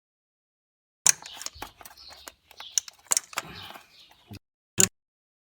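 Metal hand tools clinking and knocking against engine parts in a run of short, sharp knocks with rattling between them. The knocks start about a second in, and a single loud knock comes near the end.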